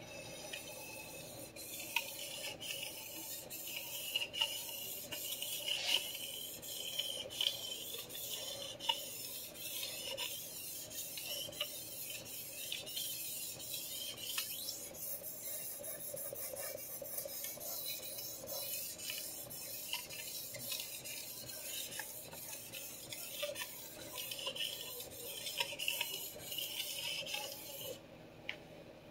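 Steel chef knife blade drawn back and forth across a sharpening stone in repeated scraping strokes, with occasional light clicks, during finish sharpening. The strokes stop about a second before the end.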